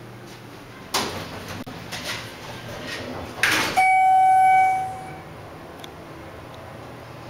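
Schindler hydraulic elevator's sliding doors running for about three seconds, with a louder bump as they finish. A single electronic chime tone follows, ringing for about a second and fading.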